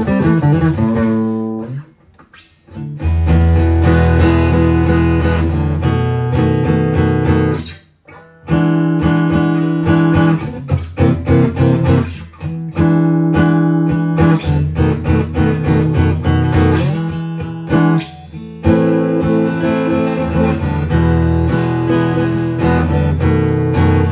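Acoustic-electric guitar played through an amplifier, strumming and picking chords, with two short breaks in the playing, about two seconds in and about eight seconds in.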